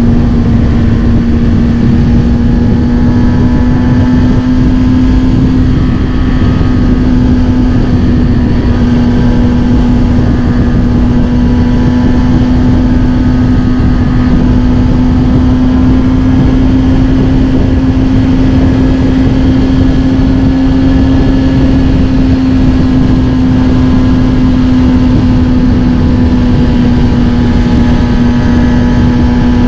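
Kawasaki Ninja ZX-6R inline-four engine through a Scorpion titanium exhaust, running at a near-constant cruising speed, its note holding almost level with slight rises and falls. A constant low rushing noise lies beneath it.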